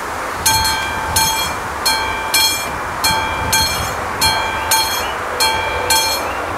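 Classic electromechanical level-crossing bell starting to ring about half a second in, then striking steadily about every 0.6 s, each stroke ringing briefly: the crossing has activated its warning for an approaching train.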